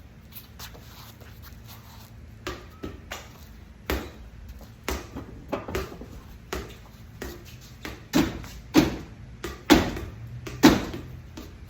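A run of irregular sharp knocks and clanks, sparse at first and louder and closer together in the last few seconds, over a faint steady low hum.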